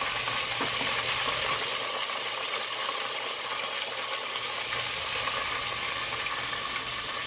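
Breaded chicken pieces deep-frying in oil set to a moderate 325 °F in a CoolDaddy electric deep fryer: a steady sizzle of gentle bubbling, not roaring. A faint low hum runs underneath.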